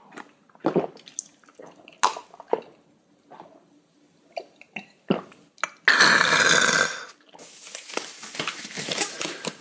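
A man drinking a glass of soju in a few gulps, with close-up swallowing and mouth sounds. About six seconds in comes a loud rasping rustle, followed by the crinkling of a black disposable plastic glove being pulled onto a hand.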